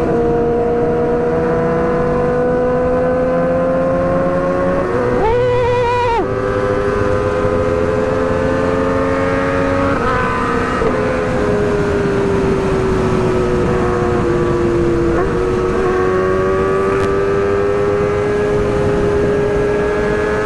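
Motorcycle engine running at high revs on the move, its pitch slowly climbing and easing off, with a brief wavering rise about five seconds in. The exhaust has broken off at its joint, so the bike runs without its silencer.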